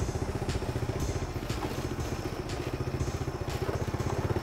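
Small motorcycle engine running at low speed, a rapid, steady pulsing.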